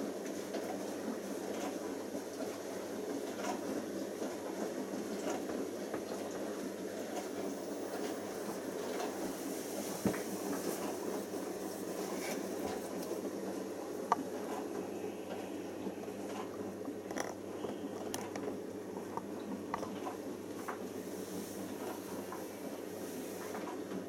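Siemens iQ WIQ1430 front-loading washing machine turning a full wash load in its drum during an Easy Care prewash. It makes a steady churning with a few small knocks, about ten and fourteen seconds in.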